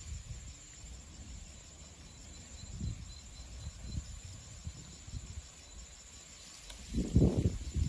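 Insects chirping steadily in a high, pulsing trill, over a low, uneven rumble that comes and goes and swells briefly near the end.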